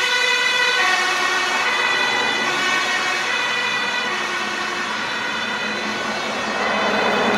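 Fire engine's two-tone siren sounding, alternating between a high and a low note about once a second as the truck drives away on an emergency call.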